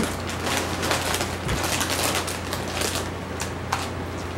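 Crackling of a bag of potato chips being handled and chips crunching, a quick run of sharp crackles for about three seconds that then thins out. A steady low hum sits underneath.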